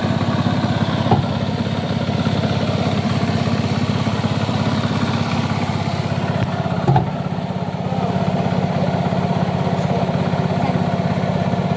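An engine running steadily at idle with an even pulsing beat. Two short knocks stand out over it, one about a second in and another past the middle.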